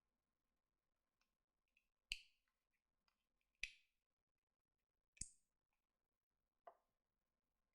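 Near silence broken by four short, sharp clicks about a second and a half apart, the last one fainter.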